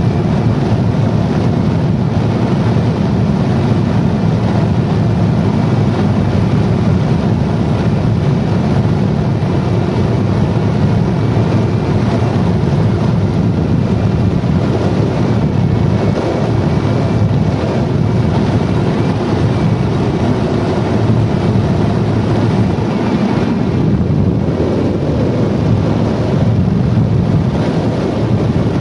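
Steady rush of air around a glider in flight, heard as a loud, even, low rumble of wind noise on the microphone.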